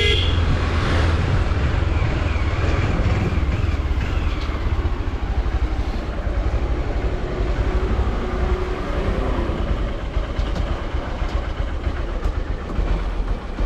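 Motorcycle engine running at low speed and idling, a steady low rumble.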